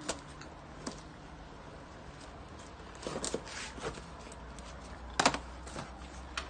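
A long Priority Mail cardboard box being pulled and torn open by hand: scattered rustling and scraping of cardboard, with a sharp crack about five seconds in.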